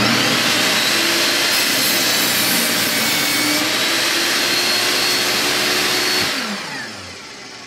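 Vevor portable table saw running at full speed while its blade cuts through a board of hard yellow pine without slowing. About six seconds in it is switched off, and its motor brake winds the blade down quickly to a stop.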